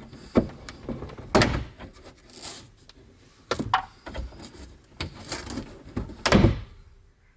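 Plastic rear interior trim panel of a BMW E92 M3 being pried and pulled free, its clips popping loose. Several separate sharp clicks and knocks, with handling rustle between them.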